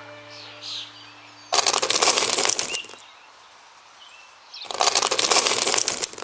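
A handful of small coloured gravel stones poured onto sand and onto a pile of stones, rattling for about a second and a half, twice. Faint bird chirps can be heard between the pours.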